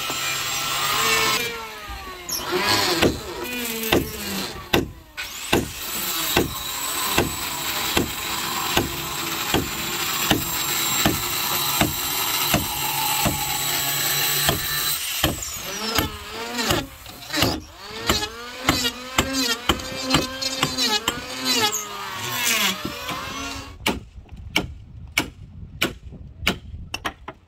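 Sharp knocks, about one or two a second, with squealing, creaking glides rising and falling between them. Near the end only a few clicks remain.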